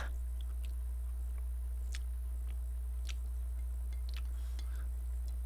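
A person chewing a mouthful of Chapagetti black-bean-sauce noodles, with a few faint scattered mouth clicks, over a steady low electrical hum that is the loudest sound.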